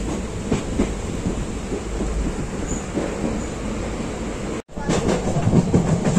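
Moving Indian Railways passenger train heard from inside the coach through an open window: a steady rumble with irregular knocks of the wheels running over the rails. The sound cuts out for an instant about four and a half seconds in, then returns with more knocking.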